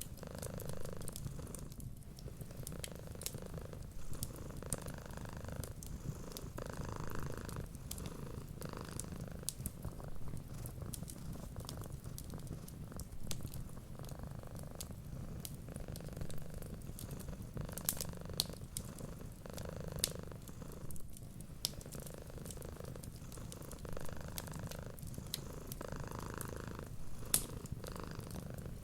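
Cat purring steadily, swelling and easing with each breath, over the small, sharp, irregular crackles of a wood fire.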